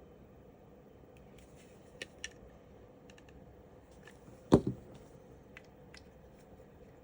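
Light clicks and taps of Glock pistol frame parts being handled and fitted during assembly, with one sharp knock about four and a half seconds in, followed at once by a smaller one.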